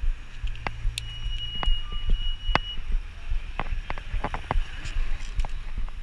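Bicycle ridden along a city street: a steady run of clicks and rattles from the bike and its wire basket over the road, over low traffic rumble. A short, thin, steady high tone sounds about two seconds in.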